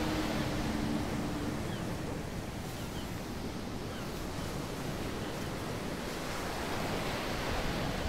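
Sea surf breaking and washing onto a beach, a steady rush of waves. A held low music note fades out about a second and a half in.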